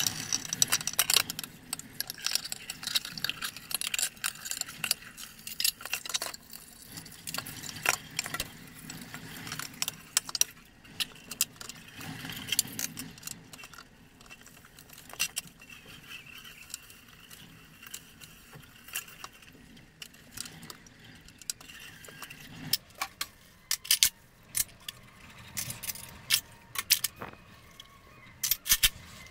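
Dishwashing at a stainless steel sink: a metal pot and dishes clink and knock against the sink with the tap running. Near the end, a china plate and forks clink in a plastic drainer as they are dried.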